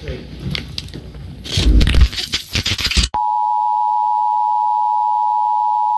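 Loud, irregular crackling broadcast interference, then an abrupt switch about three seconds in to a steady electronic attention tone from a warning-system test card. The tone holds at one even pitch and level.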